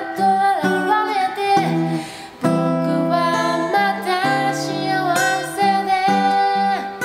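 Acoustic guitar strummed under a voice singing a slow Japanese pop song, with a short break in the singing about two seconds in.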